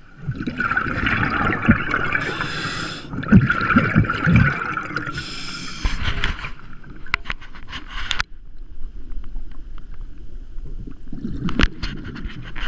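Scuba diver breathing through a regulator, heard from an underwater camera: the bubbly rush and gurgle of exhaled air, with short hissing breaths between. Later come a few sharp clicks and knocks.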